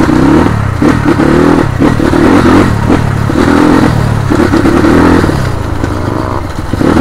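Engine of a moving road vehicle running under way, its pitch wavering up and down, with rattling over a rough road.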